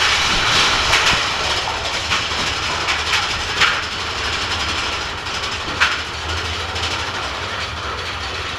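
Big Thunder Mountain Railroad mine-train roller coaster running along its track, a steady rush and low rumble with occasional sharp clacks from the wheels and cars.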